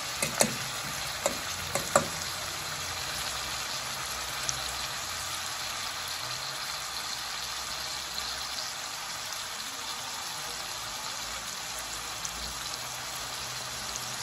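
Sliced onions, tomatoes and scallions sizzling steadily in hot oil in a metal pot. In the first two seconds a fork stirring them clicks a few times against the pot.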